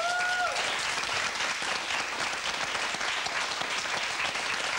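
Studio audience applauding steadily, with one brief rising call from the crowd right at the start.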